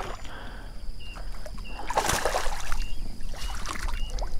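A hooked red drum (redfish) splashing and thrashing at the surface beside a kayak, with the loudest splashing about two seconds in. The fish is still 'green', still lively and fighting near the net.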